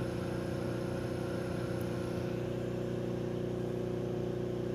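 Electric-driven generator rotor, a disc with magnets and ferrite rings, spinning at a steady speed with a constant mechanical hum of a few held tones. Its pickup coil has just been switched from short circuit to open circuit, so the rotor is running without electrical load.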